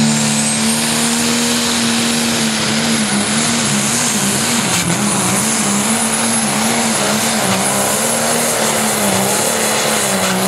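Pro Stock pulling tractor's turbocharged diesel engine at full throttle, dragging the sled. It makes a loud, steady engine note with a high whine over it. From about three seconds in, the pitch wavers up and down.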